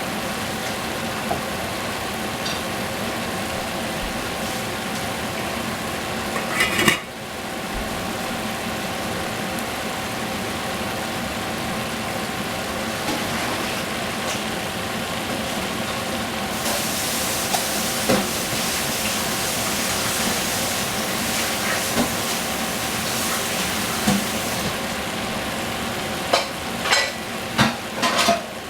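Food sizzling as it is stir-fried in a pan, over a steady hum. There is a loud metal clatter about seven seconds in. A little past halfway the sizzle turns louder and hissier, and near the end a utensil clinks against the pan several times.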